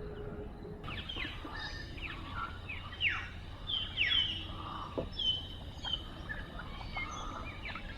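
Several birds calling, a string of short, falling whistles and chirps, over a steady low background hiss.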